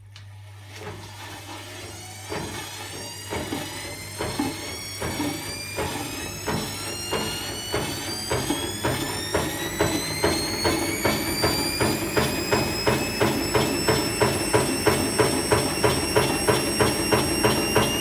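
Nidec washing-machine universal motor spinning up as its voltage is raised on a Variac, its whine rising in pitch over about the first ten seconds and then holding. It belt-drives a tumble dryer drum, and the sound grows louder with a regular knock about twice a second.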